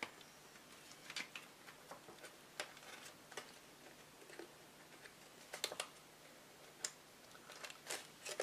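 Faint, irregular clicks and taps of metal eyelet-setting pliers and stiff card being handled as a metal eyelet is set into the box flap.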